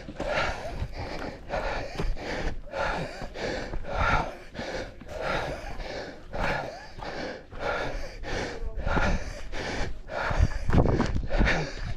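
Strong wind buffeting the microphone in gusts, with deep rumbling blasts and a quick, uneven rushing.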